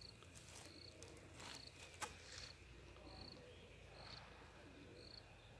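Near silence with a faint, short, high chirp repeating roughly once a second, typical of an insect such as a cricket, and a single faint tick about two seconds in.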